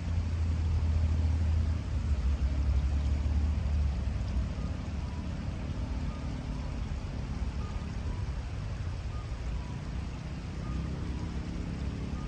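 Riverside ambience: the steady hiss of a shallow river flowing over stones, under a low rumble that is heavier for the first few seconds and then eases.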